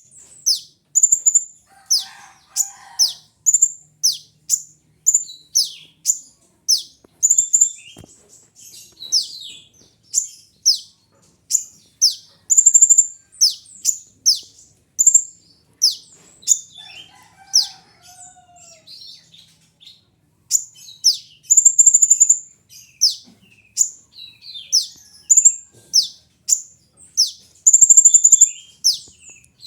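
A sunbird of the kind kept in Indonesia as 'kolibri ninja' singing a fast run of high chirps, each a sharp note falling steeply in pitch, about two a second, broken by a couple of short pauses.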